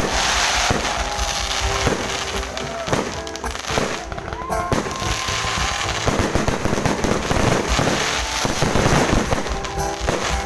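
Fireworks going off in a rapid, irregular run of bangs.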